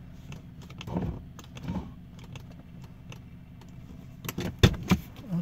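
Light clicks and taps, with a quick cluster of louder ones a little past four seconds in, over a low steady hum in the cabin of the idling Lancia Thema 3.6 Pentastar V6.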